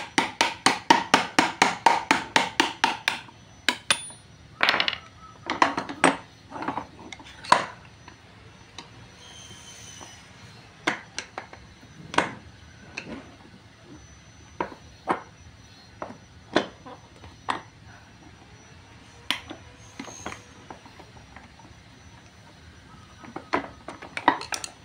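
Steel screwdriver tip clicking and scraping against the circlips and bearing caps of a propeller shaft's universal joint (cross joint) as the circlips are pried out. A quick run of about eight metallic clicks a second for the first three seconds, then scattered single clicks and taps.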